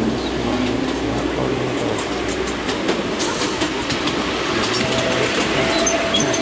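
Ride on a miniature railway train pulled by a miniature Class 43 HST locomotive, running steadily along the track: an even rumble with scattered clicks of the wheels over the rails.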